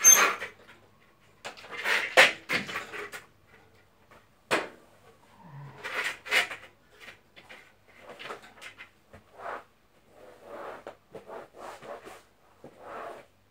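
A floor squeegee wrapped in a cloth being worked over a floor, making a string of irregular knocks and scrapes. The knocks are loudest in the first few seconds, and softer scraping strokes follow.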